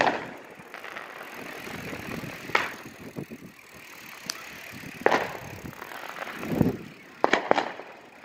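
Steady noise of a bicycle being ridden, broken by sharp firecracker bangs every two to three seconds, with two in quick succession near the end.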